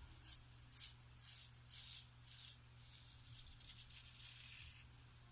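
Faint, rhythmic scratchy strokes of wet shaving on a lathered face, about two a second, over a steady low hum.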